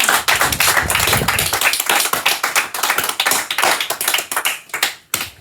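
A group of people clapping, dense at first, then thinning out and dying away near the end.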